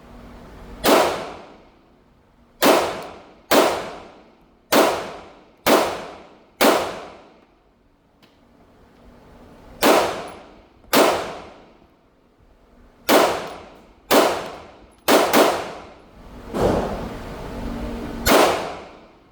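Taurus semi-automatic pistol firing about a dozen shots at an uneven pace, mostly singly or in loose pairs, with one quick double tap near the end. Each shot cracks sharply and echoes briefly.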